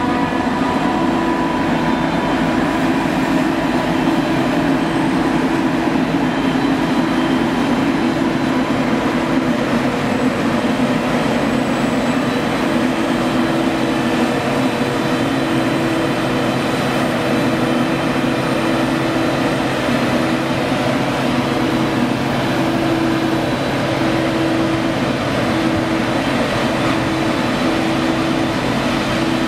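Claas Jaguar 960 self-propelled forage harvester running steadily under full load as it chops maize and blows it through the spout, a loud continuous drone with a low hum, and a tractor pulling the forage trailer alongside.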